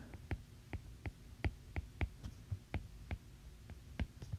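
A stylus tip tapping and clicking on a tablet's glass screen while handwriting: faint, sharp, irregular clicks, about three or four a second.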